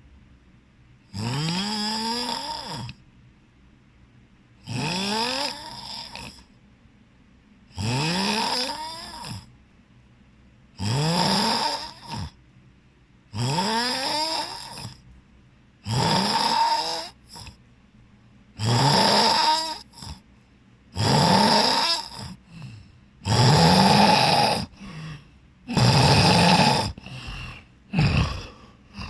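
A person snoring heavily, about ten loud snores spaced two to three seconds apart, each rising in pitch as it goes. The snores grow louder and more ragged toward the end.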